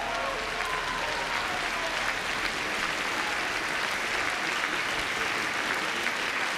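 Large audience applauding steadily, a dense even clapping.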